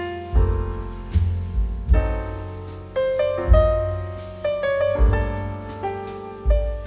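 Background piano music: a gentle melody of struck notes over deep bass notes that return about once a second.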